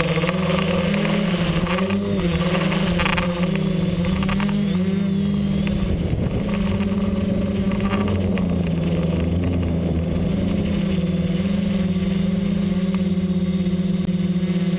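XAircraft X-650 V4 quadcopter's motors and propellers humming steadily in flight, heard from the camera mounted on the aircraft, the pitch wavering slightly.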